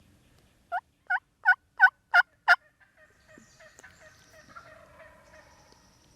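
Six loud, evenly spaced turkey yelps in quick succession, each note breaking from a higher to a lower pitch, in the rhythm of a hen's yelping series.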